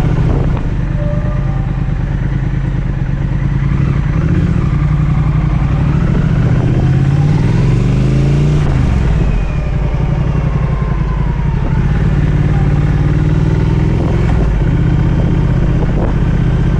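Triumph Speed Twin 1200's parallel-twin engine running under way at town speed, heard from the rider's seat. A little past halfway its note climbs as the bike accelerates, then drops back and runs steady again.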